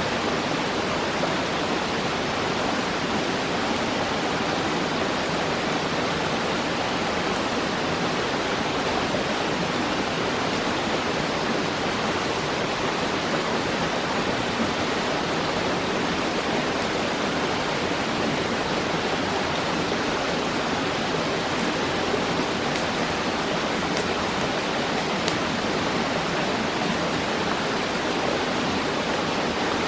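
Steady rushing of flowing stream water, an even hiss with no change in level.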